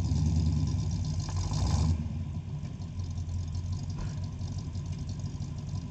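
Jeep engine running under load while pulling a stuck Jeep, higher for about the first two seconds, then easing back to a lower, steady running.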